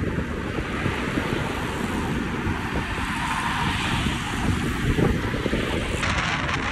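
Wind rushing over the microphone at about 45 to 50 km/h, a steady noise with a heavy low rumble. It turns brighter and hissier about six seconds in.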